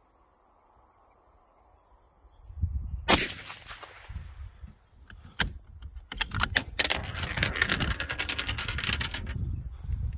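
A single shot from a 6.5 Creedmoor bolt-action rifle fitted with a moderator, about three seconds in, with a short echo after the crack. A few seconds later there is a sharp click, then a quick run of clicks and rattles for about three seconds.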